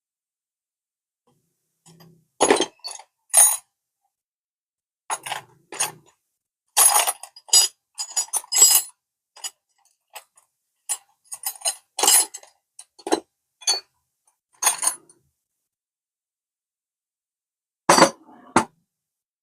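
Irregular clinks and clacks of tools and small hard parts being handled while a scooter's front fairing is taken off. The clatters come in short groups with silence between them, two sharp ones near the end.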